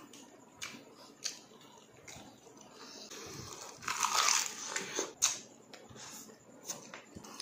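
Crunching bite into crispy chicharon bulaklak (deep-fried pork mesentery) and chewing. A few light clicks come first, then a burst of crunching about four seconds in, the loudest part, followed by a sharp crack and smaller crunches.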